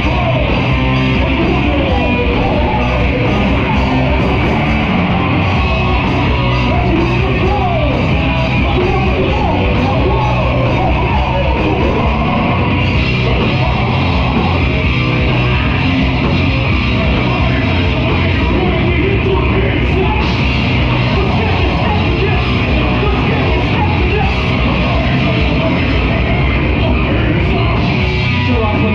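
Live rock band playing loud and without a break: electric guitar and a full band, with a vocalist singing into a microphone over it.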